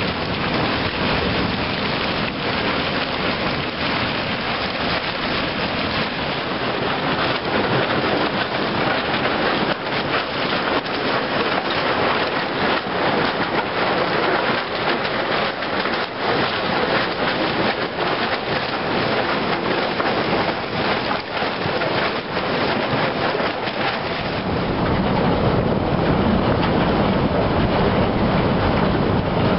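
Broken river ice crackling, grinding and scraping along a boat's hull as the boat pushes through the floes, a dense run of small cracks and knocks. About three-quarters of the way through a steadier low rumble comes up under it.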